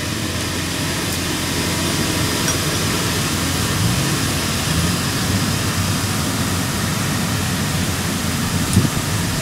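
Rice combine harvester running steadily as it cuts the rice, a constant rushing engine noise.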